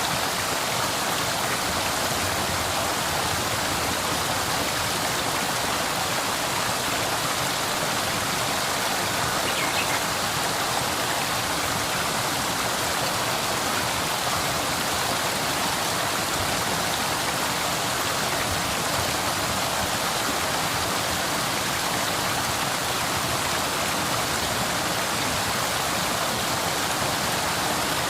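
Small homemade waterfall with water pouring and splashing in a steady, unbroken rush.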